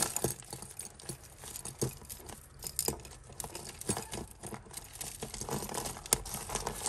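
A tangled heap of costume jewellery (metal chains, beads and faux pearls) clicking and rattling as hands pick it apart, in irregular light clicks with one sharper click about six seconds in.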